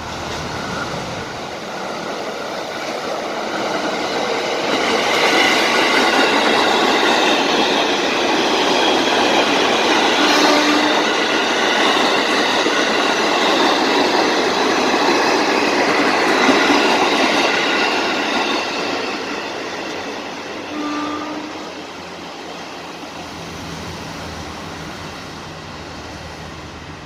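A train passing on the rails. The rumble and rail noise build over the first few seconds, stay loud for about ten seconds, then die away as it moves off.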